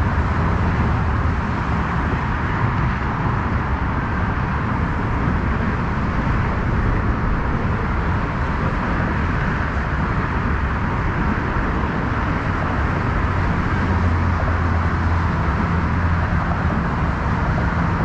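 Steady, even rushing noise with a low rumble underneath and no distinct events, loud throughout.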